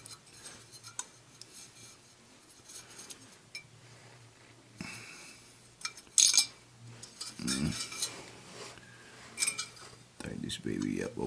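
Scattered metallic clinks and taps as an oil burner motor's blower wheel and an Allen wrench are handled to set and tighten the wheel on the shaft, with a sharper click about six seconds in.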